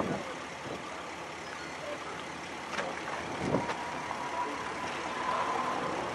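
Steady rushing background noise. It carries a couple of soft knocks midway and a faint, steady high whine through the second half.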